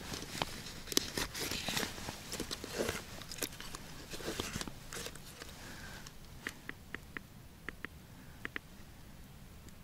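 Crunching and rustling of snow and clothing as a padded case is handled on the snow, with quick irregular crackles for about six seconds. After that it goes quieter, with a string of short, high ticks every half second or so.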